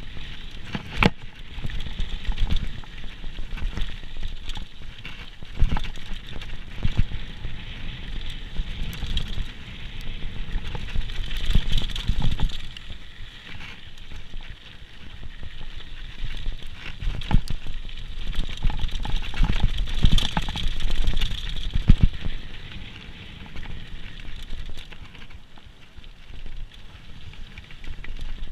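Downhill mountain bike running over a rough trail: continuous rattling and crunching from tyres and frame, broken by irregular sharp knocks from bumps.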